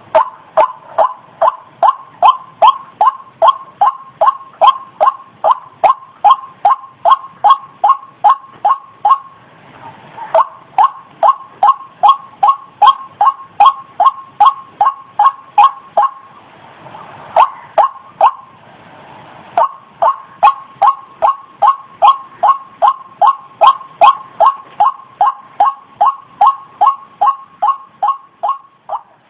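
White-breasted waterhen's "kruok" call, repeated steadily about twice a second, with two short breaks, one about a third of the way in and one just past the middle.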